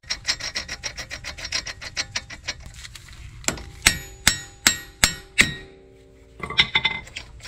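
Ball-peen hammer striking a nut threaded backward onto the end of a Mitsubishi 3000GT VR4 drive axle: six quick blows that ring like metal, knocking the axle shaft inward to free it from the hub. Before the blows there is a run of quick light metallic clicks, and a few more clicks come near the end.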